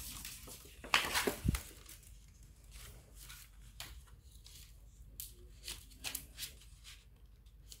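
Crackling and rustling of a thin perforated air-conditioner deflector sheet being handled and flexed. A loud crackle comes about a second in with a low bump just after, then scattered short clicks and rustles.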